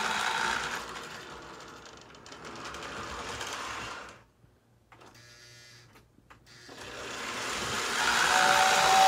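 Lionel 2020 turbine locomotive running on three-rail tinplate track, its electric motor and gearing giving a steady whir that fades away, drops to near silence for a couple of seconds in the middle, then grows louder again as it comes back. Near the end the tender's whistle sounds, a steady two-tone blast.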